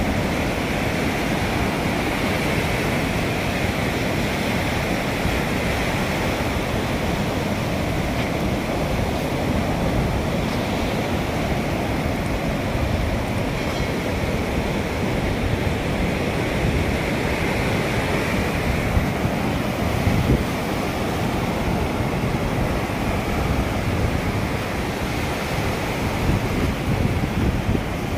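Sea surf washing onto a sandy beach, a steady rushing hiss, with wind buffeting the microphone.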